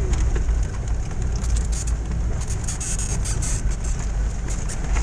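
Car driving slowly over a muddy, rutted dirt track, heard from inside the cabin: a steady low engine and road rumble. From about a second and a half in there are bursts of crackling and spatter as the wheels throw up mud and water from the puddles.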